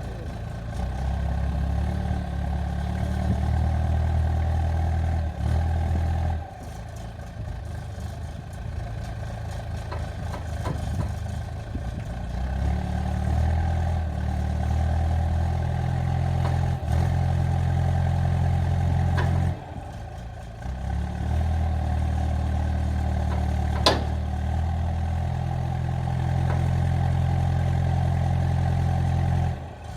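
Skid steer engine working under load, swelling and easing back several times as the machine works. There is a single sharp clank about three-quarters of the way through.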